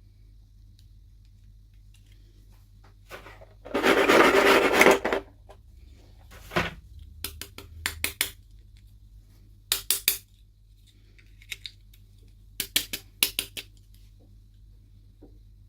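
Hands handling small hard plastic miniature pieces and packaging: a loud rustle of about a second some four seconds in, then a scatter of sharp clicks and light clatter in small groups.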